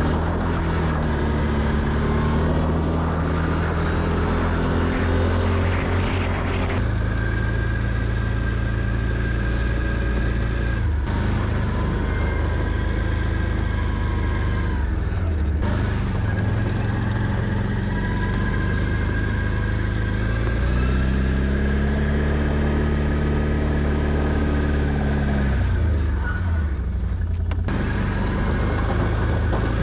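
Can-Am Outlander 650 ATV's V-twin engine running under load while plowing snow, its pitch rising and falling as it revs up and eases off, with several abrupt changes in the sound.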